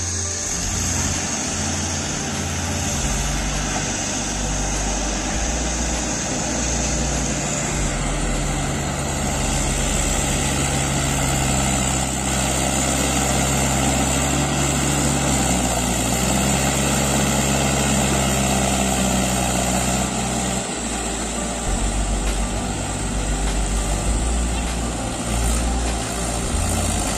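Farm tractor's diesel engine running under load as it hauls a trailer of stone slabs up a gravel track; the engine note drops about three-quarters of the way in.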